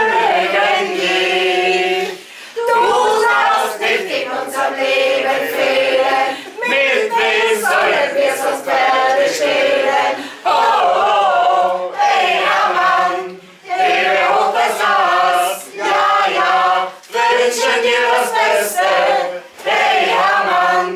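A mixed group of men and women singing a song together, in phrases broken by short pauses.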